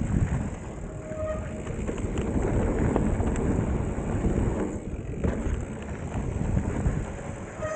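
Mountain bike riding noise picked up by a chest-mounted action camera: a steady, loud rumble of wind and tyres on the trail.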